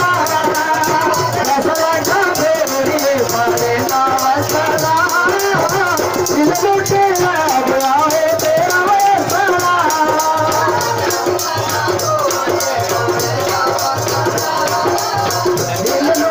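Live Dogri folk music from a performing troupe: a wavering melody over a fast, even, high-pitched percussion beat that keeps going without a break.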